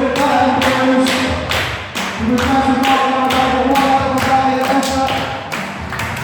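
Wrestler's entrance music played over the hall's speakers: a steady pounding beat under long held notes.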